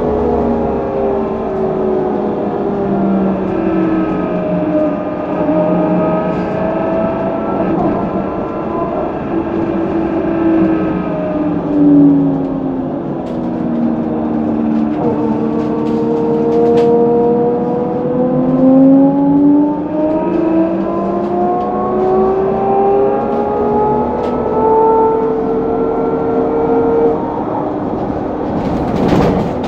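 Electric traction drive of a HESS Swisstrolley 4 trolleybus whining, heard from inside the bus: several tones slide down in pitch for about twelve seconds as it slows, then climb again as it pulls away and accelerates. A short knock near the end.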